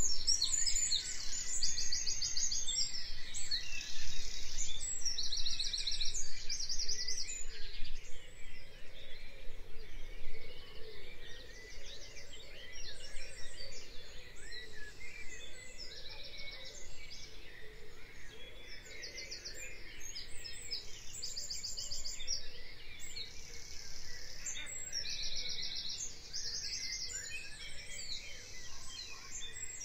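Songbirds chirping and trilling over a faint steady background, with many short rapid trills repeated one after another. Louder for the first ten seconds or so, then softer.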